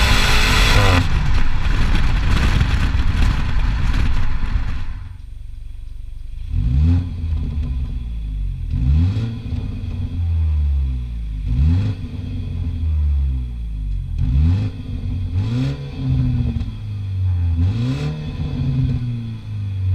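Stock BMW 125i's 2.0-litre turbocharged four-cylinder and exhaust. It opens with a few seconds of loud rushing noise, then from about six seconds in the engine revs climb and drop again and again, roughly every second and a half, with a few sharp pops between revs.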